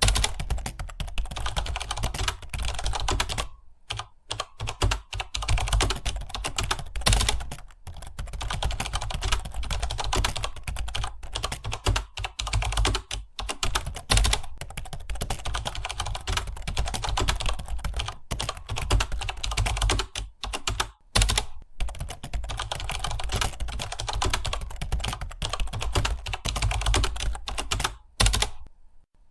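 Rapid, continuous typing on a computer keyboard: a dense patter of keystrokes with a few short pauses, one about four seconds in and one near the end.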